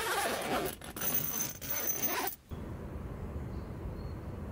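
Tent zipper being pulled open in three quick strokes, each a rasping zip, stopping about two and a half seconds in.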